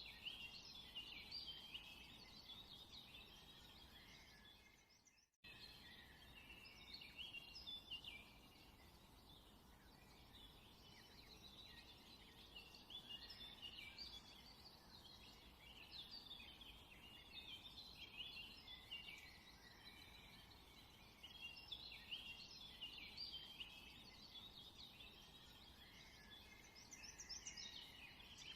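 Many small birds chirping and twittering in a dense, continuous chorus, quietly. The sound cuts out abruptly for a moment about five seconds in, then resumes.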